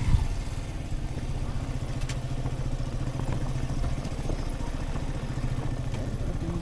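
Motorcycle engine running steadily, with a sharp thump right at the start.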